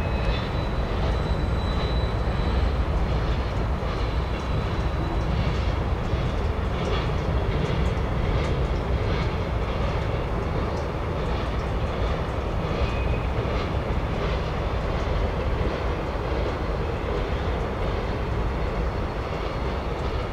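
Freight train pulled by diesel locomotives rolling across a stone arch bridge: a steady rumble with light irregular clicks above it.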